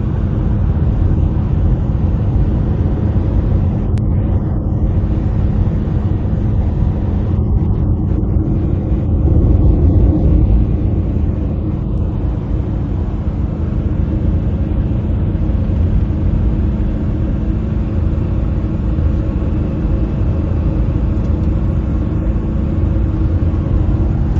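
Car driving along a road: steady rumble of tyres and engine with a low, constant hum.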